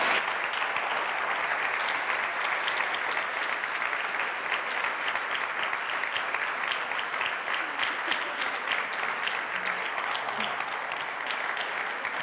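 A seated audience applauding, with steady, sustained clapping from many hands.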